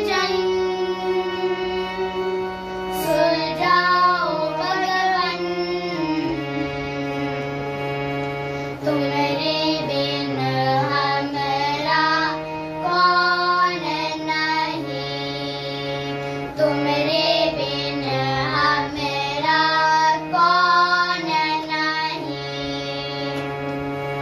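Two children, a girl and a boy, singing a Hindi bhajan to a harmonium. The harmonium holds sustained chords that change in steps, and the sung phrases come and go over them.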